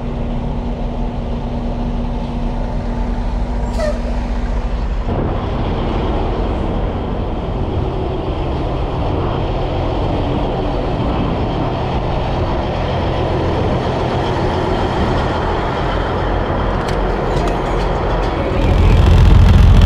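Diesel engine of a 1984 Peterbilt 362 cabover truck running steadily at idle, a low rumble that grows louder near the end.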